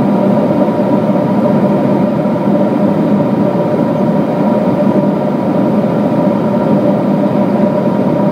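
Cabin noise of a Boeing 777-200 in cruise, heard inside the cabin beside the wing: a steady rush of airflow and engine noise with a few steady hums beneath it.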